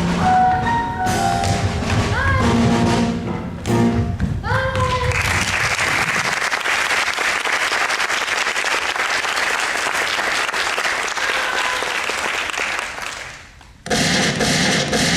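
Orchestral show music ends with a couple of rising slides. The audience then applauds for about eight seconds, and the applause fades out. Near the end a different sound cuts in abruptly.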